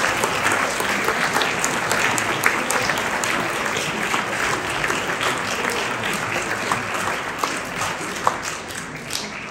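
A congregation applauding: many hands clapping together, dying away near the end.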